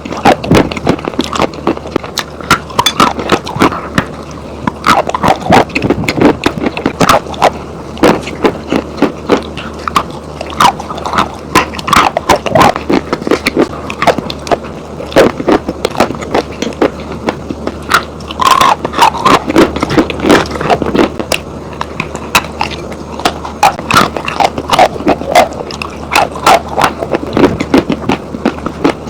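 Dry chalk and clay being bitten and chewed: a dense, continuous run of crisp, dry crunches.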